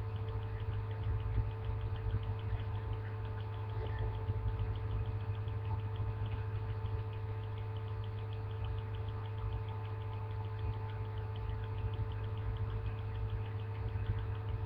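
Steady low electrical or mechanical hum with a few fixed higher tones over it and a faint, evenly repeating high ticking.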